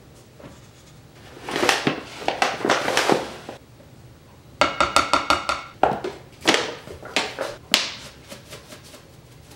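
Flour tipped from a measuring cup into a glass mixing bowl, a soft pouring rustle. Then a fast run of taps that sets the glass ringing, likely the cup knocked on the bowl's rim, followed by several scattered clicks.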